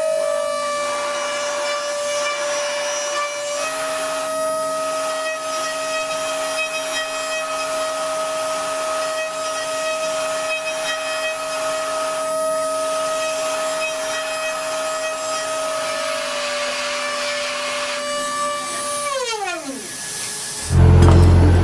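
A machine's electric motor running with a steady high whine, stepping slightly in pitch twice, then winding down with a falling whine near the end. Music comes in just before the end.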